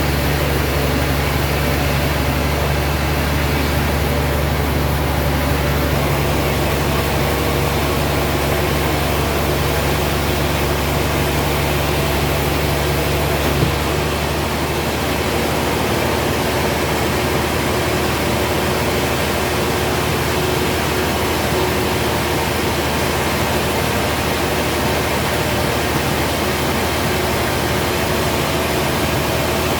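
Sawmill machinery running steadily: a continuous motor hum with a broad rushing noise over it. About halfway through, after a brief knock, the low hum shifts and eases.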